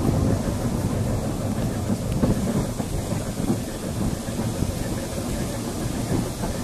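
Vintage ex-Leeds electric tram running along the track, heard on board: a steady low rumble from the wheels on the rails.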